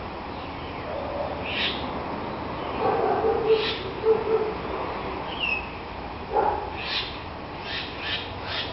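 Bird calls: short high chirps every second or two, and a low hooting call about a third of the way in.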